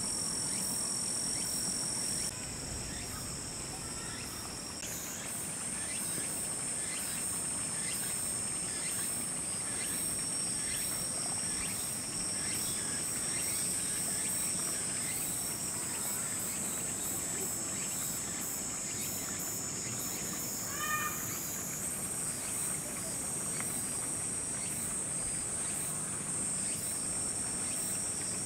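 Steady chorus of singing insects: a continuous high-pitched trill at two pitches with rapid pulsed chirping above it. One short call cuts in briefly about 21 seconds in.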